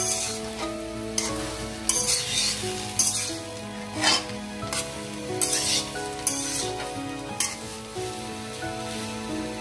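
Ash gourd pieces frying in ghee in a metal karahi, the sizzle flaring up again and again as a metal spatula stirs and turns them. Background music plays underneath.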